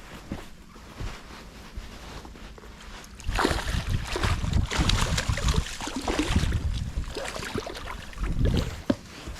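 Water splashing and sloshing, louder from about three seconds in, with low thumps and wind on the microphone: a hooked pike thrashing at the surface as it is brought in and landed.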